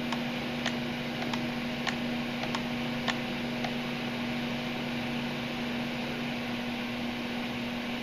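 Duct blaster fan running steadily with a constant hum, pressurizing the ductwork for a leakage test. In the first four seconds, about seven light clicks roughly half a second apart come from keys being pressed on the pressure gauge.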